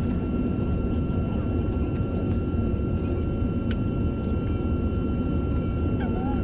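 Jet airliner heard from inside the cabin while taxiing onto the runway: a steady low engine and cabin rumble with a constant high whine over it. A single brief click partway through.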